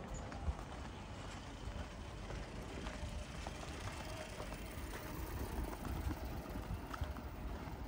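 A motor vehicle's engine running with a low, steady rumble.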